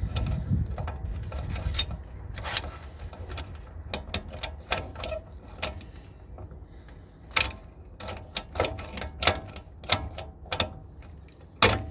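Irregular metallic clicks and ticks from a brake caliper piston rewind tool being turned, screwing the rear brake caliper piston of a Peugeot 307 back into its bore. The piston goes in slowly, a little at a time.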